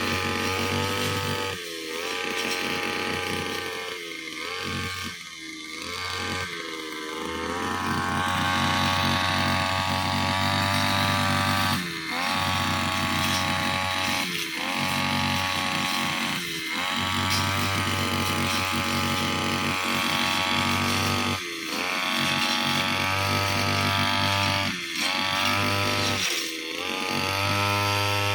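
Brushcutter engine running at high revs while cutting. Every few seconds its pitch drops sharply and climbs straight back as the throttle is eased and opened again, and it runs at a lower pitch for the first several seconds.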